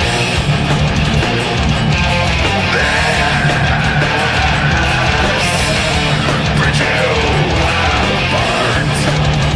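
Heavy metal: a Telecaster-style electric guitar playing a riff over a full-band backing with drums, with a held high note in the middle and a few bends.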